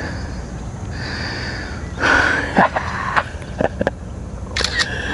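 Handling noise as a caught largemouth bass is lifted for a photo: a cluster of short clicks, rustles and breathy sounds from about two seconds in, and a couple of sharp clicks near the end. Under them a steady high tone comes and goes.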